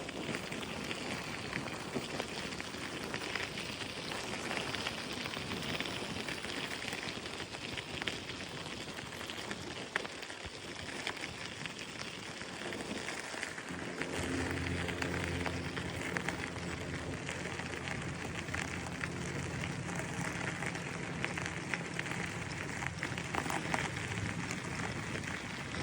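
Steady rushing hiss of riding noise on a bicycle: wind on the microphone and tyres on the path. About halfway through, a low steady hum with several pitches joins in.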